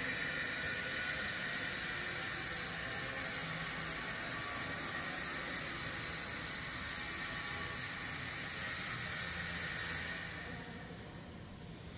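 Steady high hiss that thins out and drops in level about ten and a half seconds in.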